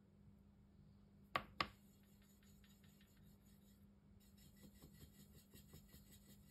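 Two sharp clicks about a quarter second apart, a second and a half in, then faint scattered light ticks over a low steady hum.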